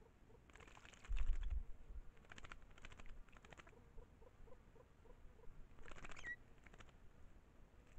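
A campo troupial bathing in a shallow pool, flicking water with its wings in several short bursts of rapid splashing, the loudest about a second in with a low thump. A faint, evenly repeated low note runs under the first half, and a brief chirp comes about six seconds in.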